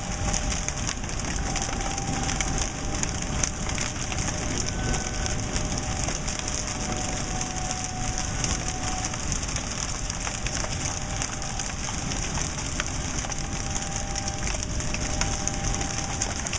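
Hail, reported golf-ball size, pelting down hard: a steady hiss of dense, sharp impacts. A faint, distant outdoor warning siren holds a tone that fades in and out.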